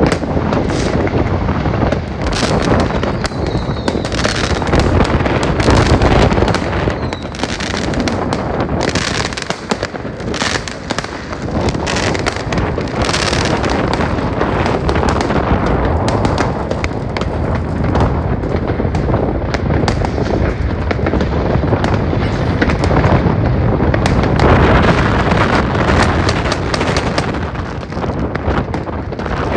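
Many fireworks and firecrackers going off at once: a dense, unbroken run of bangs, pops and crackles.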